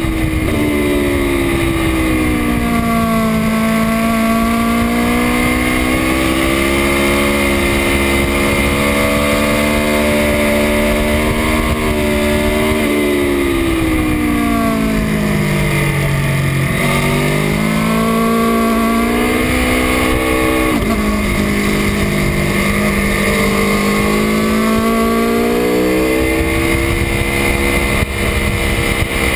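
2018 Aprilia Tuono V4 1100 RR's V4 engine at track speed, heard onboard with wind rushing over the microphone. The engine pitch falls as the bike slows for corners, deepest a little past the middle, and climbs again under throttle, with sudden steps at the gear changes.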